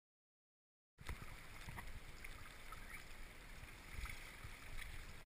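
Flowing river water around a wading angler, with a low rumble and a few small clicks. It starts abruptly about a second in and cuts off just before the end.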